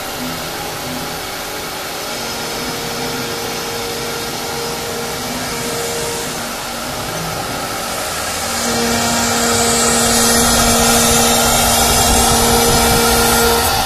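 CNC wood router's Italian HSD electric spindle running at speed while its cutter routes a relief pattern into a wood board: a steady whine over a cutting hiss, growing louder about eight and a half seconds in.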